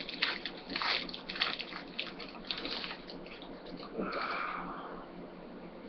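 Foil trading-card pack wrapper crinkling and tearing as it is pulled open by hand, in a run of short crackles, with a brief higher-pitched squeak about four seconds in.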